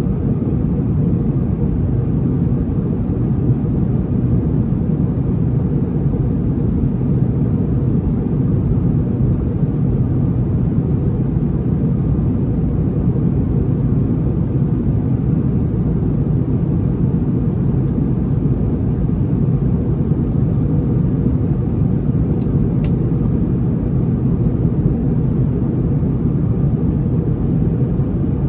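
Steady low roar inside the cabin of an Airbus A321neo airliner in descent: engine and airflow noise, even and unbroken.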